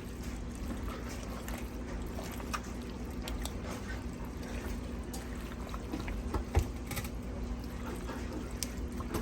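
Spoon stirring thick, creamy chicken pasta in a slow cooker: wet, sloshy mixing with a few sharp clicks of the utensil against the crock, the loudest about two-thirds of the way through, over a steady low hum.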